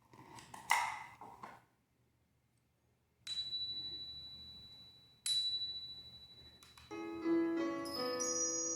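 Two bright metallic chime strikes about two seconds apart, each a high ringing tone that fades slowly, after some brief rustling. About seven seconds in, a gentle instrumental tune of held notes begins.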